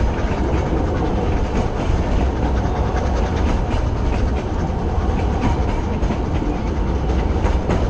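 Narrow-gauge train carriage rolling along the track: a steady rumble of wheels on rails with scattered light clicks, heard close up with wind on the microphone.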